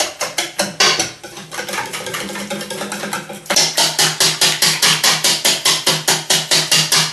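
Wire whisk beating egg batter in a stainless steel bowl: quick, even strokes against the bowl, about five a second, growing louder and sharper about three and a half seconds in.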